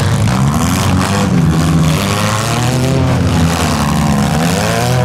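Engines of several front-wheel-drive compact demolition derby cars running and revving at once, their pitches rising and falling over one another.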